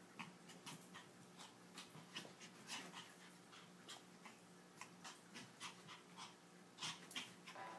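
Toy poodle at play: faint, scattered short dog sounds and scuffles, with a sharper, louder one near the end.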